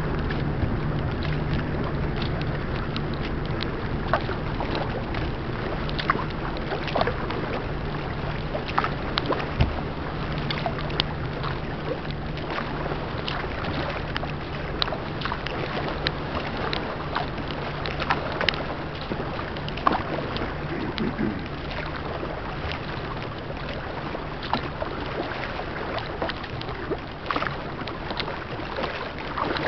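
Water splashing and slapping irregularly against a kayak's hull and paddle under way, over a steady rush of wind and water noise. A low steady hum fades away over the first half.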